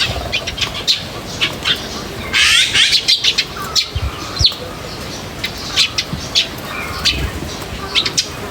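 Small birds chirping with many short, high chirps, breaking into a dense burst of rapid chatter about two and a half seconds in.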